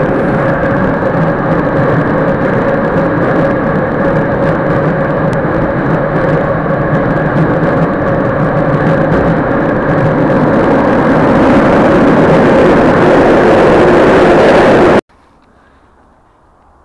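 Steady running noise of a passenger train heard from inside the carriage, a loud rumble with a constant hum of several tones. It grows a little louder toward the end and cuts off abruptly about 15 seconds in.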